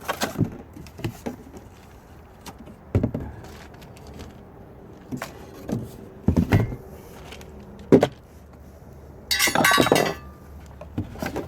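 Parts of a lawn mower bagger being handled: scattered knocks and clinks of hard plastic and metal pieces, with a louder noisy burst of about a second near the end.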